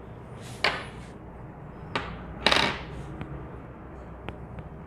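Brass shells of a lever-action CO2 BB rifle being handled and loaded with steel BBs: a few sharp clicks and short metallic rattles, the loudest about two and a half seconds in.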